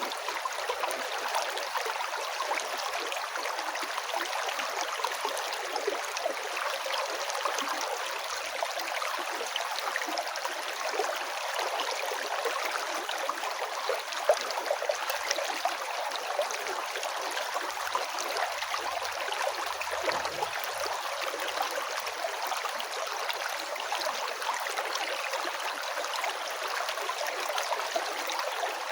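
River water flowing and gurgling over stones: a steady, even rush with no pauses.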